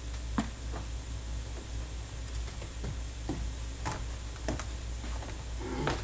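Footsteps and the handling of a closed book at a wooden pulpit: scattered soft knocks and rustles at irregular intervals, over a steady low hum in the room.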